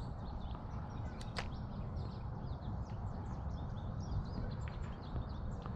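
Birds chirping repeatedly over a steady low rumble of outdoor background noise, with one sharp click about a second and a half in.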